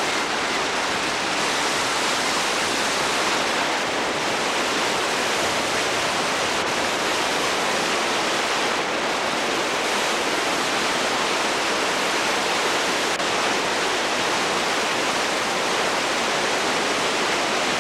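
Whitewater rapids rushing in a steady, unbroken roar of churning water.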